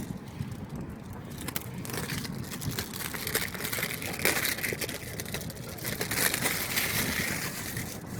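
Cardboard mystery-box packaging being handled and torn open, a run of crackling, crinkling and tearing noises.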